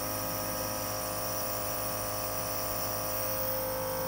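Nebulizer compressor running with a steady hum, delivering a breathing treatment to clear congested lungs.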